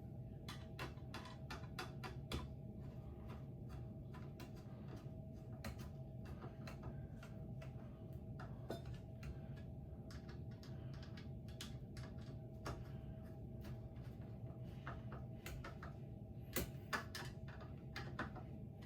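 Irregular light clicks and taps of small hardware being handled while ceiling fan blades are fastened on, with a couple of sharper knocks near the end, over a steady low hum.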